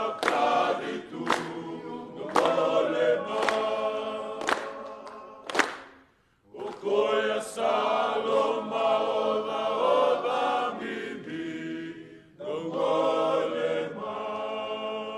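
A group of men singing together unaccompanied, in sustained phrases, with a brief pause about six seconds in and another near twelve seconds.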